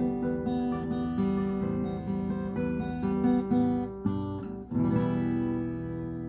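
Cutaway acoustic guitar playing a run of picked notes and chords, closing about five seconds in on a strummed chord that is left to ring and fade.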